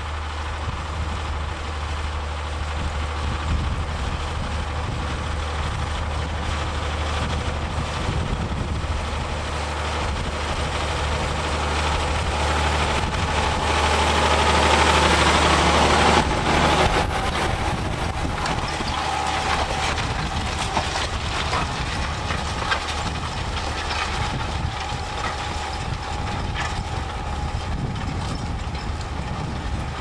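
A John Deere 6150R tractor's six-cylinder diesel engine works under load while pulling a reversible plough through the soil. It grows louder about halfway through as the tractor passes close, then drops back to a steady running sound.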